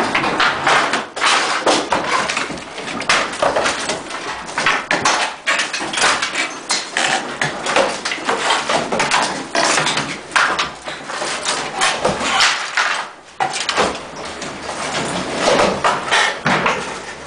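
Interior demolition by hand: hammers and pry bars striking and tearing at plaster and lath walls, a dense, irregular run of knocks and cracks with wood and debris clattering down.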